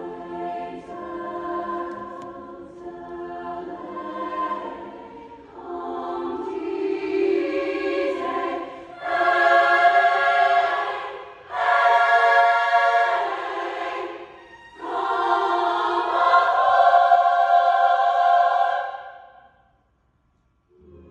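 Women's choir singing in harmony, softer at first, then swelling into loud phrases about halfway through with short breaths between them. The singing cuts off near the end.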